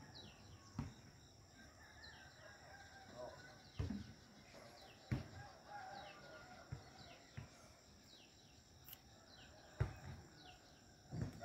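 Faint outdoor ambience: small birds giving many short, falling chirps over a steady high whine, with occasional low thumps on the microphone. A rooster begins to crow at the very end.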